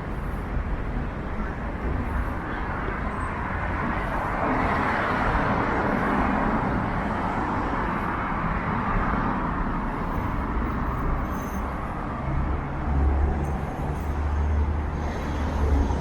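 City street traffic: a vehicle passes with a swell of tyre and engine noise about four to nine seconds in, then a deep engine rumble near the end.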